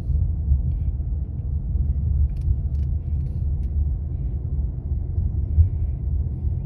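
Steady low rumble of a car driving at low speed, heard from inside the cabin: engine and tyre noise.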